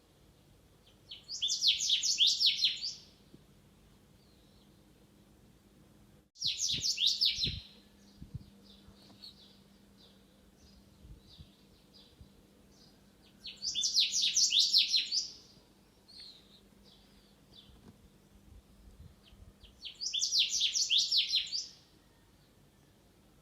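A songbird singing: four loud, rapid trilled phrases, each about two seconds long and about six seconds apart, with a few faint chirps between them.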